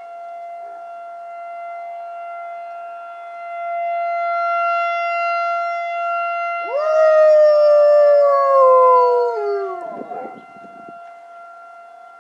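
A tornado warning siren sounds a steady tone throughout. About seven seconds in, a dog lets out one loud howl along with it, falling in pitch for about three seconds before breaking off.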